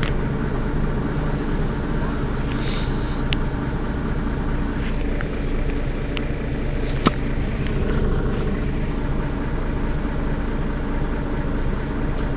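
Mercedes-Benz Citaro city bus's rear-mounted engine idling steadily at a stop, with a single sharp click about halfway through.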